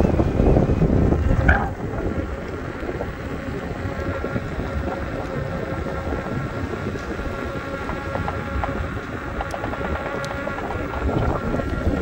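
Electric unicycle (Veteran Sherman) riding along asphalt: wind buffeting the microphone over tyre rumble, with a faint steady whine from the hub motor. The wind is strongest for the first second and a half, then eases.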